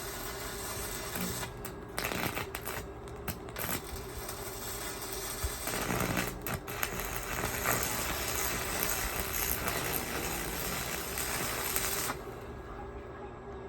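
Electric arc welding, the arc crackling and sizzling steadily, then cut off abruptly about twelve seconds in.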